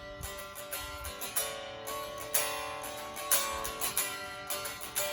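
Unplugged solid-body electric guitar, a FireFly FFTL Telecaster-style model with nickel strings, strummed and picked in a run of chords that ring between strokes, with a few sharper strums about two and three seconds in.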